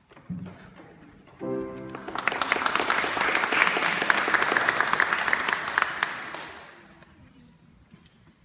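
Two short instrument notes, then an audience applauding for about four seconds before the clapping dies away.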